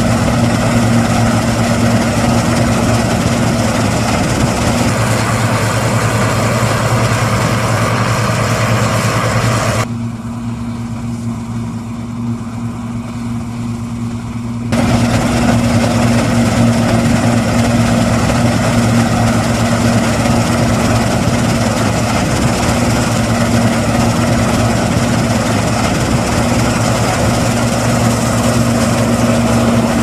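New Holland TX62 combine harvester running steadily while harvesting wheat: a constant diesel engine drone under a broad rush of machinery noise. About ten seconds in, the sound turns muffled and quieter for nearly five seconds, then comes back full.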